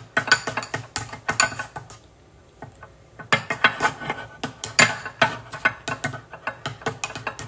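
A spoon stirring icing in a bowl, clicking and scraping against the bowl's side in quick, irregular strokes, with a short pause about two seconds in.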